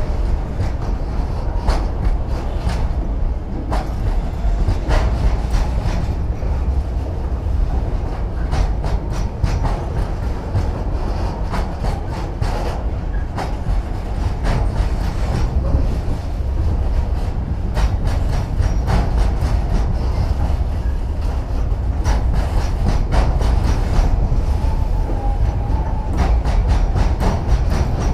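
Container freight train's flat wagons rolling past: a steady low rumble of steel wheels on the rails, with frequent irregular clicks and knocks from the wheels.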